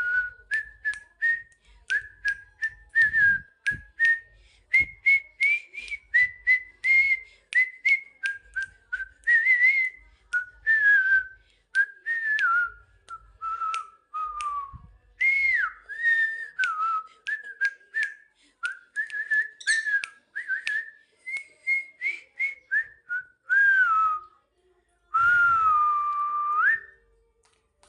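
A whistled tune of many short notes, about two a second, with small pitch bends, ending in one longer note that dips and then rises.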